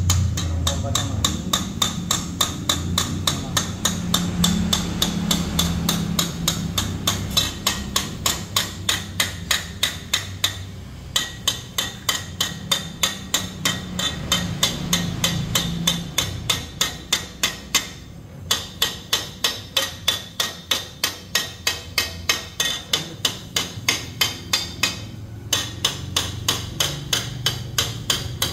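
A hammer strikes the red-hot end of a metal exhaust pipe in a fast, even run, about three strikes a second, shaping it while it is heated. The hammering stops briefly three times. A gas torch flame runs steadily underneath.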